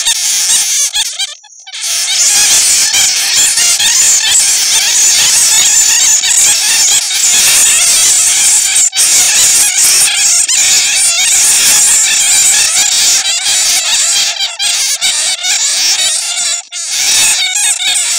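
Many bats squealing and chattering in a dense, high-pitched chorus, with a short break about a second and a half in. These are the calls of bats caught in a net, played as a lure to draw other bats in.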